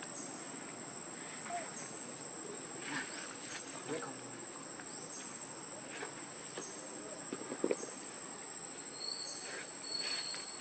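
Steady high-pitched drone of forest insects, with a short falling chirp repeating about every one and a half seconds. A few soft knocks and rustles come through, the loudest a pair of knocks about three quarters of the way in.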